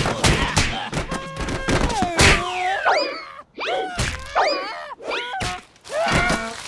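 Cartoon impact sound effects of a luger's body banging down an ice track: a rapid run of thumps and whacks, with pained cries that slide up and down in pitch in the middle.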